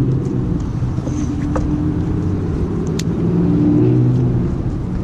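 A steady low motor rumble with slowly shifting pitch, and a couple of faint clicks.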